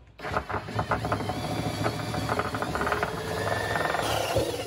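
Porter-Cable cordless drill running under load, its bit cutting to widen a faucet hole beside a kitchen sink, with a busy irregular chatter.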